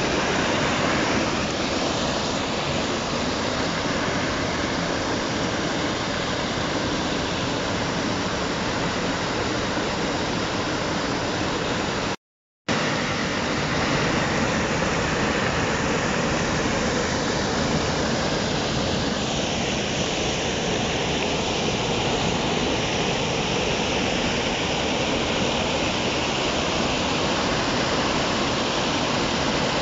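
Steady, even rushing noise with no clear tone, like running water or hiss. It cuts out to dead silence for about half a second around twelve seconds in.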